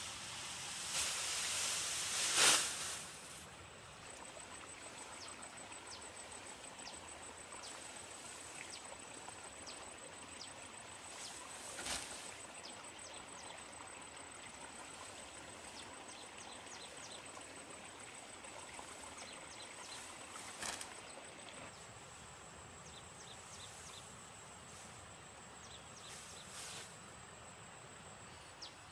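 Armfuls of cut grass rustling loudly for the first few seconds as they are handled, then quiet rural ambience: a steady high-pitched insect trill with scattered short chirps and a couple of soft knocks.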